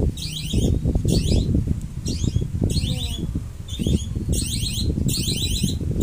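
A short, shrill high-pitched chirp repeated evenly about one and a half times a second, over soft rustling and handling noise.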